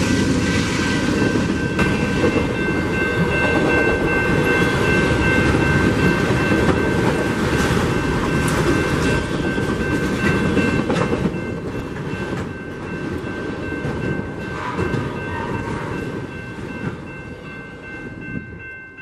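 Autorack freight cars rolling past at speed: a steady rumble and clatter of wheels on rail, with a high steady ringing tone over it. It fades over the last several seconds as the end of the train goes by.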